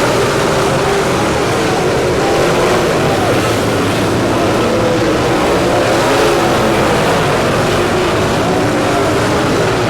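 Dirt late model racing V8 engines running hard on track, their pitch rising and falling without a break as the cars go through the turns and down the straights.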